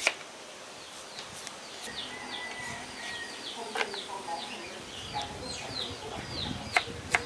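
Small birds chirping over and over in short, falling chirps, with a few sharp knocks, the loudest right at the start and two more near the end.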